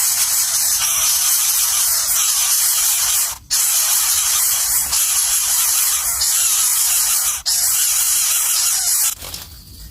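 A loud, steady hiss of noise, broken by two brief dropouts about three and a half and seven and a half seconds in, and cutting off suddenly near the end.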